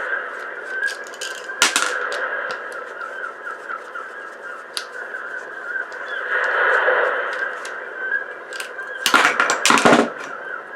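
A sharp click under two seconds in and a cluster of loud knocks near the end, from small parts being handled. Behind them is a steady background of faint chirping and a harsh, rough call a little past halfway.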